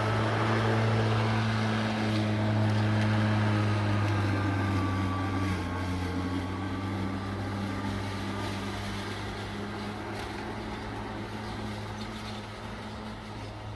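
Atlas 80-volt battery-powered self-propelled lawn mower running as it cuts tall grass: a steady electric motor and blade hum with a faint high whine, growing gradually quieter in the second half.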